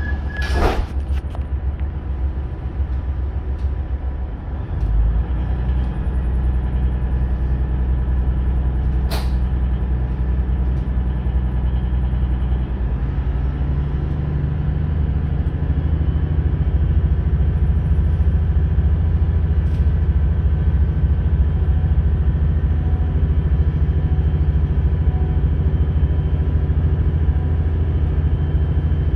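Hunter railcar's Cummins QSK19R diesel engine, driving through a Voith hydraulic transmission, heard from inside the carriage as the railcar pulls away: a steady low drone that grows louder about 5 seconds in and rises in pitch about 13 seconds in as the train gathers speed. A short sharp burst of noise sounds about half a second in, and a brief click about 9 seconds in.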